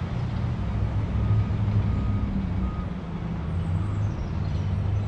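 Steady low rumble of a heavy motor vehicle engine, like a truck, with a few faint short high beeps in the first half.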